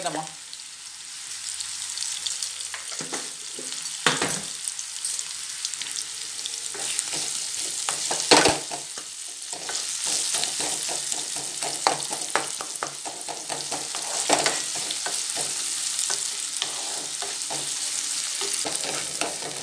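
Sliced onions sizzling steadily in hot oil in a metal kadai, stirred with a wooden spatula that scrapes the pan and now and then knocks against it.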